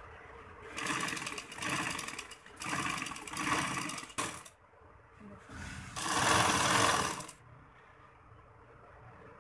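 Domestic sewing machine stitching in short runs: three or four quick runs in the first four seconds, then after a pause a longer run of about a second and a half.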